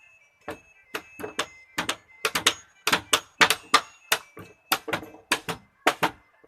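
Rapid, irregular hammer strikes on a building site, about three or four sharp knocks a second, starting about half a second in.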